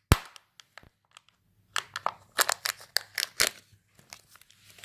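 Kinder Joy egg's plastic toy capsule being opened by hand: one sharp plastic snap at the start, then a run of clicks and crinkles as the toy is taken out and unwrapped, roughly two to three and a half seconds in.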